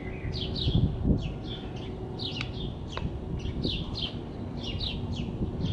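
Small birds chirping over and over, about two short chirps a second, with a low knock about a second in and a few light metallic clicks from a screwdriver prying open the locking clip on a CV joint boot.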